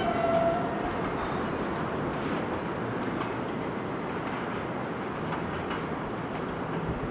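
R160B subway train braking to a stop, with a short squeal right at the start, then the steady noise of the train at a standstill with a faint high-pitched whine.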